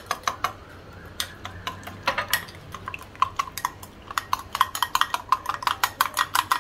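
A metal spoon beating instant coffee, sugar and hot water into a paste in a ceramic mug, clinking against the mug with a ringing note. The clinks are scattered at first, then from about four seconds in become quick and steady, about five a second.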